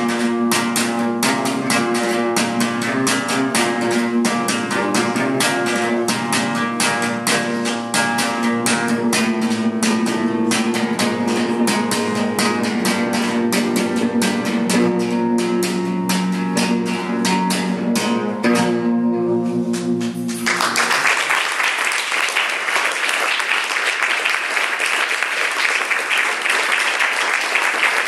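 Guitar played with rapid, rhythmic strumming strokes. The playing stops about twenty seconds in and audience applause follows and carries on.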